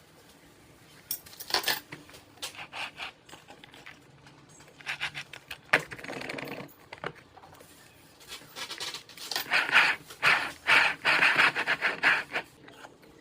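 Hard plastic parts of a cake turntable set being handled: irregular clicks, taps and short scrapes, busiest in the last few seconds.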